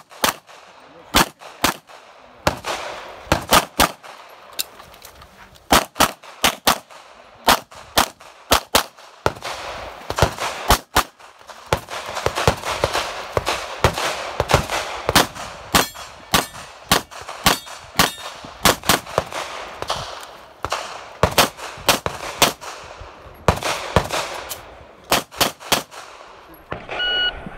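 Semi-automatic pistol fired in quick pairs and short strings, many shots in all. Near the end a shot timer gives a short electronic beep.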